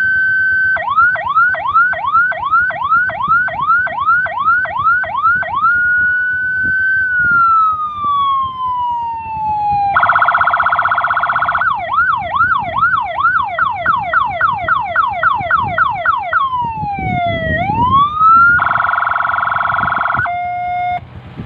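Electronic 12-tone siren unit switching through its tones in turn: a steady tone, a fast yelp of about three sweeps a second, a slow falling wail, a buzzy horn blast, another fast yelp, a swoop down and back up, a second horn blast, and a short steady tone near the end.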